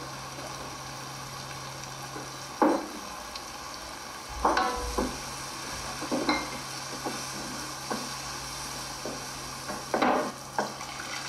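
Onion–tomato masala sizzling in oil in a kadai as it is stirred, the utensil scraping and knocking against the pan a handful of times, one knock ringing briefly. The spice powders are being fried in the oil until well roasted.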